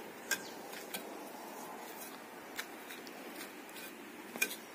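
Mason's trowel scraping and tapping on a cement water tank as mortar is spread to patch a crack: about four short, sharp clicks over a faint background hiss.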